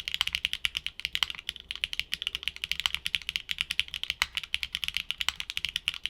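Mechanical keyboard with HMX Shanghai linear switches being typed on quickly: a fast, continuous run of bright, high-pitched clacks.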